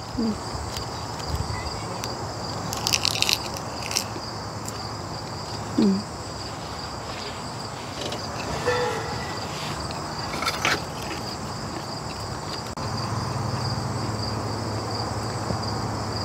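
Insects chirping steadily in a high pulsing trill, with a few crisp crunches as a fresh lettuce wrap with cucumber and bitter melon is bitten and chewed.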